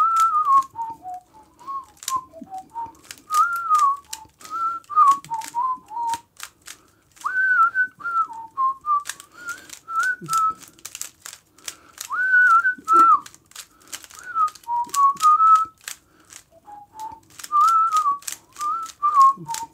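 A man whistling a wandering tune in short phrases while the layers of a Rubik's Cube click in quick runs as he turns them.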